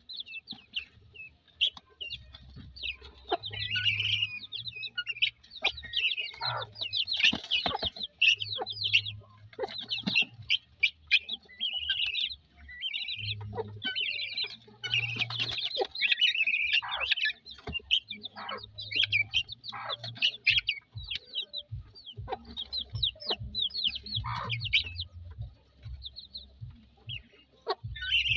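A mixed flock of young chicks and helmeted guineafowl keets cheeping and chirping without a break, with a hen's clucks now and then.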